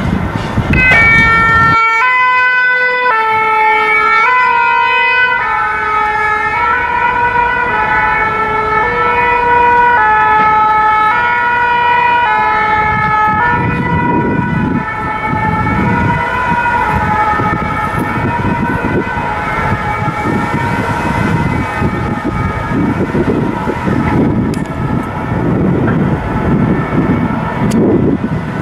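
Two-tone emergency siren of the French kind, alternating between two notes, loud at first and fading out after about thirteen seconds. After it comes a low, steady rumble of street and tram traffic.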